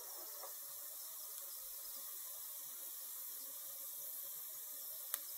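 Freshly air-fried chicken wings sizzling in the pulled-out air fryer basket: a steady, soft crackling hiss of hot fat. A single sharp click near the end.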